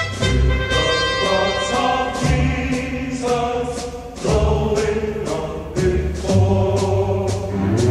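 Music with choral singing over a bass line and a steady beat.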